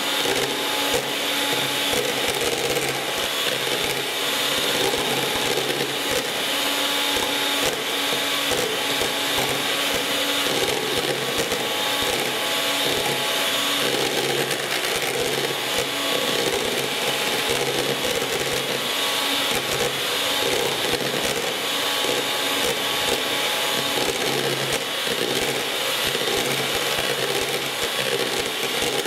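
1980s Gorenje MGA M202 electric hand mixer running steadily at one speed, its twin beaters whipping cream in a plastic bowl. A constant motor whine with rapid irregular ticking throughout.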